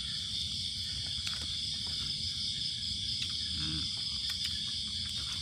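A steady, high-pitched chorus of night insects, with a few faint clicks and a brief low murmur of a voice past the middle.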